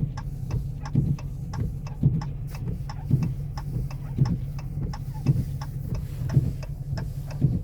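Windshield wipers thumping about once a second over the steady low hum of a car driving, with fainter ticks in between.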